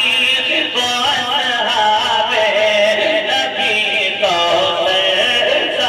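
A man's voice singing a naat in long, ornamented notes, the melody bending and sliding up and down without a break.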